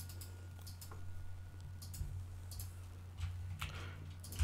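Several faint computer mouse and keyboard clicks, spaced irregularly, over a low steady hum.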